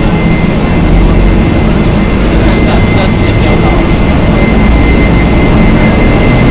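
Taiwan Railway electric locomotive E403 and its train moving past at low speed: a loud, steady mechanical rumble with a thin steady whine above it.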